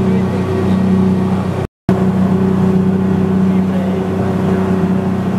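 Speedboat engine running steadily at speed, a low even drone with the rush of wind and water over it. The sound drops out completely for a split second a little under two seconds in, then carries on unchanged.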